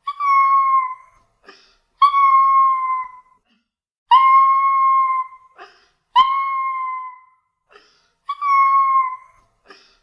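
Small dog howling in a series of five howls about two seconds apart. Each howl is a held high note, about a second long, that dips slightly at its end, with brief faint sounds in the gaps between.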